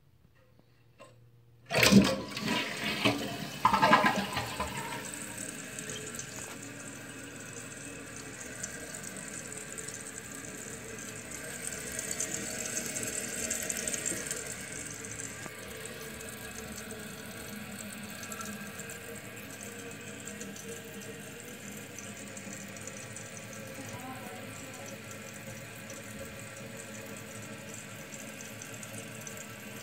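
A 2014 Kohler Wellworth toilet flushing: a sudden rush of water starts about two seconds in and is loudest for the first few seconds. It then settles into the steady hiss of the tank refilling.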